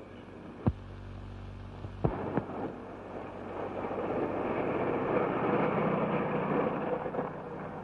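Train rushing past, a rumble that swells to a peak about five to seven seconds in and then eases off. Sharp clicks come about a second in and again about two seconds in.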